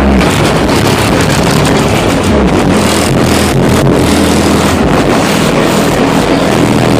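Music from a car audio system played very loud, its heavy bass notes overloading the microphone into a distorted rumble.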